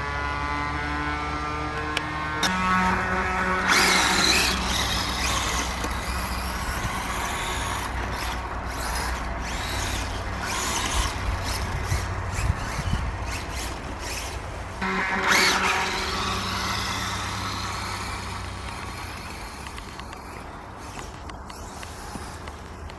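Brushless electric 1/4-scale RC dirt bike with its gyro flywheel spinning, a steady hum with a level tone, and two louder stretches of rushing noise, about three seconds in and again about fifteen seconds in.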